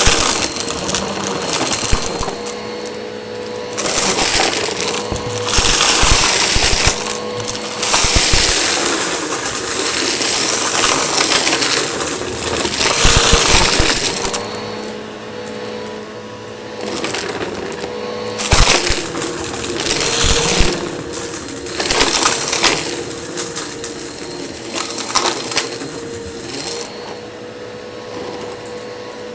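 Eureka vacuum cleaner running with a steady motor hum, broken by repeated surges of crunching and rattling as grit and debris are sucked up along the carpet edge. The surges are strongest in the first half and ease off near the end.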